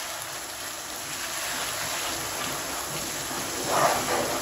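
Okra in yogurt masala sizzling in a non-stick kadai while a wooden spoon stirs and turns it over, a steady hiss with a louder stir near the end.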